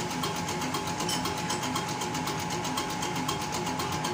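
Diesel injection-pump test bench running a JAC truck's electric rotary fuel-injection pump under test, with a rapid, even ticking of the injectors spraying into the measuring glasses over a steady whine and hum.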